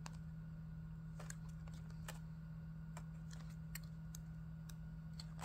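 Pages of a glossy photo book being handled and turned: scattered light clicks and paper ticks over a steady low hum.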